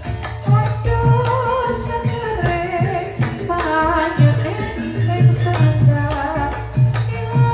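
Javanese gamelan music accompanying the lengger dance: a singer's wavering melodic line over repeated low drum strokes and pitched percussion.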